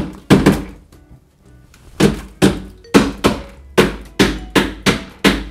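A mesh sieve knocked repeatedly against a container to shake out strained beetroot pulp. The sharp knocks each ring briefly; after a pause of about a second near the start, they come two or three a second.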